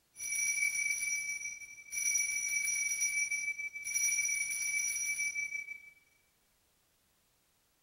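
Altar bells shaken three times, each a jingling peal of about two seconds with a steady bright ring, fading out about six seconds in: the bells rung at the elevation of the host to mark the consecration.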